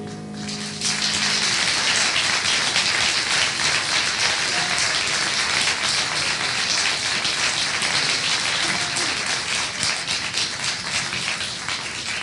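Audience applauding at the end of a choir song, the clapping swelling in about a second in as the last sung and played note dies away, and tailing off near the end.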